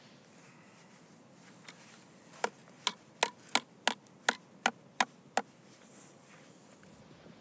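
About nine sharp metallic clicks, roughly three a second, from pliers working the steel wire that binds a split log back together.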